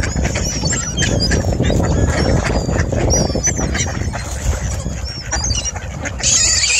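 A close-packed flock of mallards quacking and calling while being fed, with many short high calls over a dense low clamour and a louder burst of noise just before the end.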